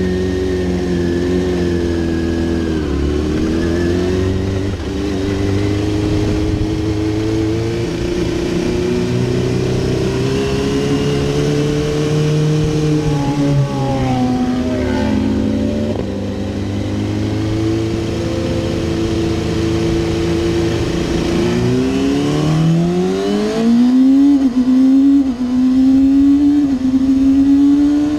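2007 Kawasaki ZX-6R's inline-four with an Akrapovič Evolution exhaust, heard from on the bike, revving up and down with the throttle. Its pitch falls away about halfway through. Near the end it climbs hard through the gears, each quickshifted upshift a brief dip in pitch.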